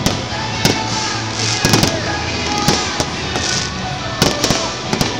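Aerial fireworks shells launching and bursting: a run of sharp bangs, several in quick succession a little under two seconds in and again near the end, with music playing underneath.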